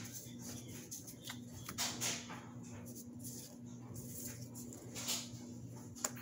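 Trading cards being fanned and flicked through by hand: a run of short papery swishes and slaps as the cards slide over one another, ending with a sharp click as the stack is set down on a playmat just before the end.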